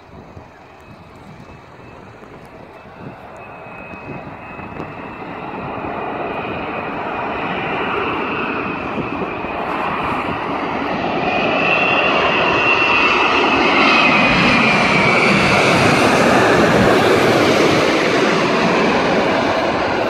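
Airbus A380's four jet engines on landing approach, growing steadily louder as the airliner flies low overhead. A high engine whine falls in pitch as it passes, and the sound eases slightly near the end.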